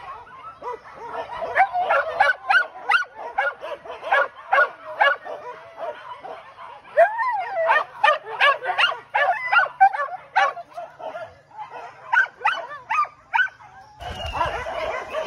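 A pack of hunting dogs yelping and barking excitedly, many short high calls in quick, overlapping succession. The sound changes abruptly about a second before the end.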